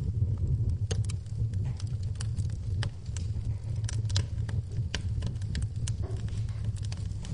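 Wood fire in a fireplace crackling: irregular sharp snaps and pops, several a second, over a steady low rumble of the burning flames.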